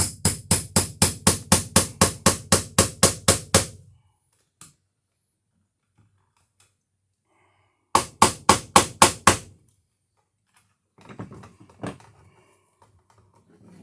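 Hammer driving nails to fasten an electrical box to a wall stud: a quick run of about seventeen even strikes, then a second run of about six strikes some seconds later.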